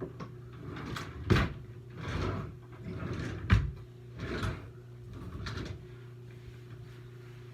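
Handling noises: two sharp knocks, about a second and a half in and again about three and a half seconds in, with short rubbing and rustling sounds around them, over a steady low hum.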